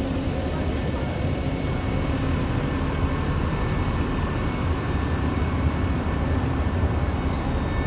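Heavy diesel engines of large buses idling at the ferry dock: a steady low rumble with a faint steady hum above it.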